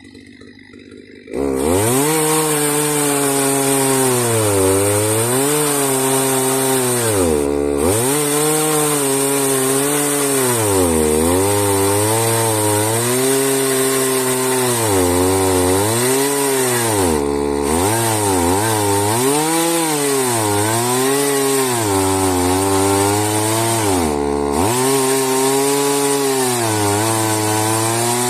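Chainsaw ripping lengthwise through a log in a homemade Alaska mill, the engine running hard under load. It comes in suddenly about a second in, and its pitch keeps sagging and recovering as the chain bogs in the cut, dropping deeply three times.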